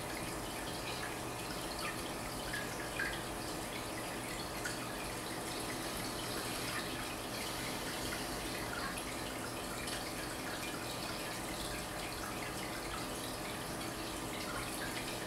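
Water circulating in a saltwater reef aquarium: a steady trickle with many small, irregular drips and bubble pops over a steady low hum.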